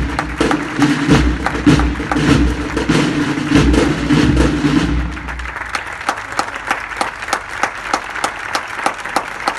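A wind band holds its final chord, with deep bass, and cuts off about halfway through. Applause with sharp, closely spaced claps runs through the end of the music and carries on after it.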